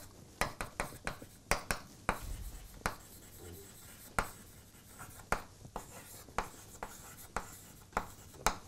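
Chalk writing on a blackboard: a string of irregular sharp taps and short scratches as the chalk strikes and strokes the board.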